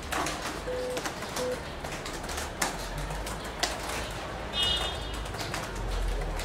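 Laptop keyboards being typed on by several people: irregular, overlapping key clicks. A short high chirp comes about four and a half seconds in.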